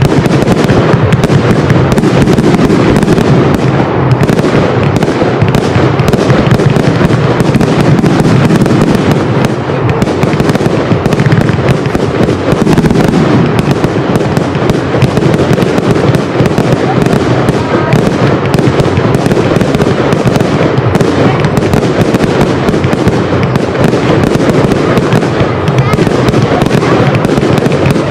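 Aerial fireworks display in full barrage: rapid, overlapping launches and shell bursts with crackling, loud and unbroken throughout.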